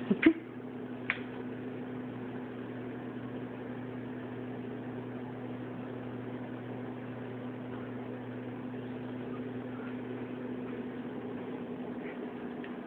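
Steady electrical hum of a household appliance running, with two or three sharp clicks about a second in.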